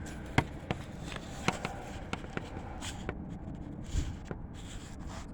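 Handling noise from a handheld phone: scattered small clicks and scuffs, with a dull thump about four seconds in.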